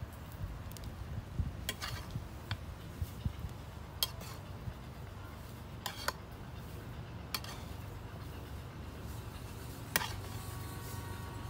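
Slotted metal spatula clinking and scraping against a metal karahi while stirring and fluffing cooked rice, with about half a dozen sharp clinks spaced a second or two apart over a steady low rumble.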